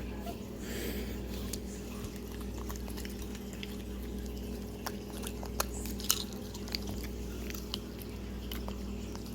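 Puppy chewing and crunching carrot pieces, irregular sharp crunches and clicks of its teeth, over a steady low hum.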